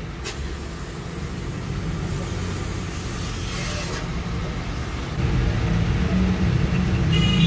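A heavy metal axle housing tube is shifted and rubbed against the workshop floor. A low mechanical rumble grows louder about five seconds in, and a brief high whine comes near the end.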